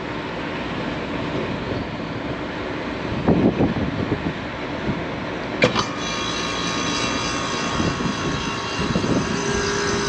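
Rooftop HVAC unit with a steady rushing run noise and a dull knock about three seconds in. A little over halfway through, a click is heard and the unit comes on again with a steady whine. The technician takes this stop-and-start to be short cycling.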